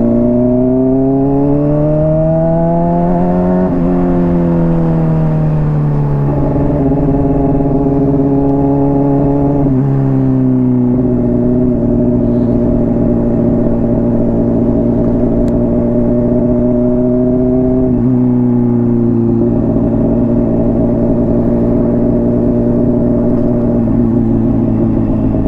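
Honda CBR600RR inline-four engine through a slip-on exhaust under way. The revs climb for about four seconds, then step down and up through several gear changes and hold fairly steady while cruising.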